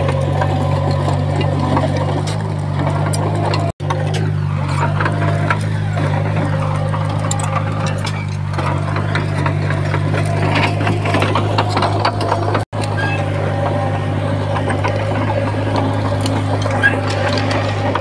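Small Komatsu crawler bulldozer's diesel engine running steadily under load, with metallic clatter and rattling over its low drone. The sound cuts out for an instant twice, about four seconds in and again near thirteen seconds.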